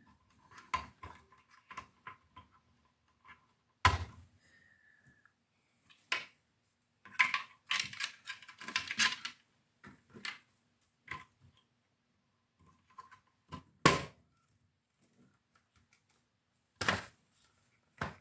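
Hands working inside the open casing of a Tascam Porta 02 cassette multitrack, plugging internal wire connectors back in: scattered sharp plastic clicks and knocks, with a quick run of clicks about seven to nine seconds in and single louder knocks about four, fourteen and seventeen seconds in.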